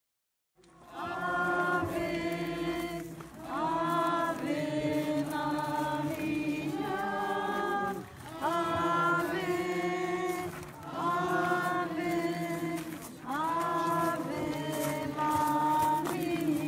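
A group of voices singing a slow hymn together in phrases of two to three seconds, starting about half a second in.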